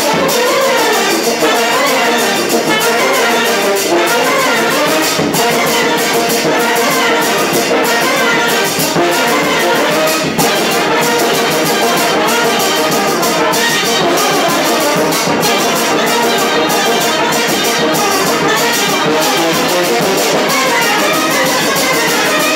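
A fanfară brass band playing live: several trumpets and lower brass horns in a lively tune over a steady bass-drum beat.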